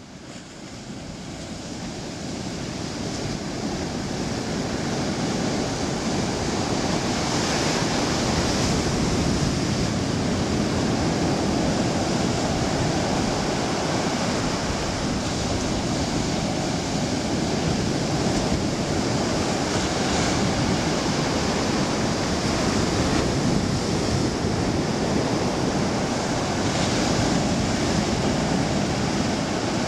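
Ocean waves breaking and washing up a beach: a steady rush of surf that fades in over the first few seconds.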